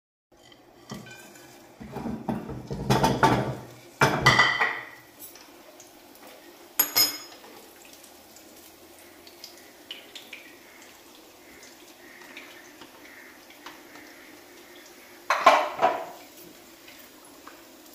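Kitchen clatter as whole spices and dried red chillies are tipped from a plate into a small frying pan of hot oil on a gas burner. Two bursts of pan and utensil noise come a few seconds in, then a sharp clink, then another burst of clatter near the end.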